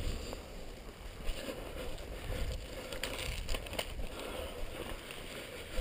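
Wind buffeting and handling noise on a body-worn camera's microphone, a low uneven rumble, with a few light clicks about three to four seconds in.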